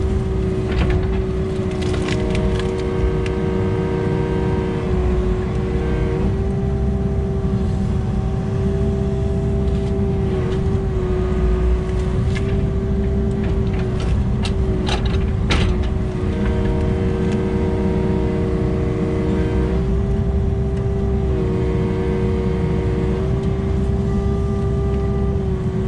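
Kubota KX080 excavator's diesel engine running steadily under load, with a steady hydraulic whine that shifts as the controls are worked while it travels carrying a pine stump. Scattered clicks and knocks come through, most of them in the middle of the stretch.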